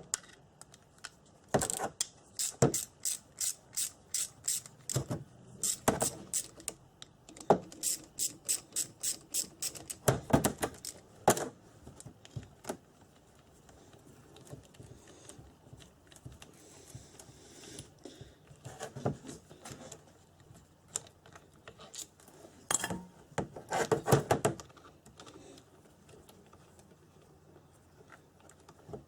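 A ratchet with a 7 mm socket clicking in runs of quick, even ticks, about three a second, while undoing the bolts on a starter motor casing. It is followed by a few louder metallic clatters as the parts are handled.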